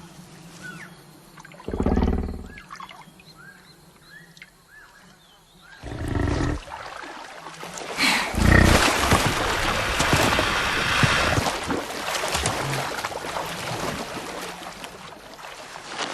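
Two short, deep bellows from a water buffalo, about two and six seconds in, over small bird chirps; from about eight seconds a long, loud stretch of crackling, rustling noise.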